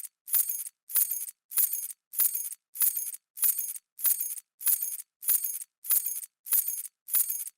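A bunch of metal keys dropping with a bright jingling clatter, the same short clatter repeating evenly about every 0.6 seconds, with brief silences between.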